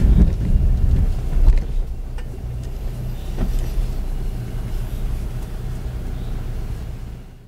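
Audi Q5 driving slowly over a rough dirt track, heard from inside the cabin: a steady low engine hum under a heavy rumble from the body and suspension, with a few sharp knocks from the uneven ground. The sound fades out near the end.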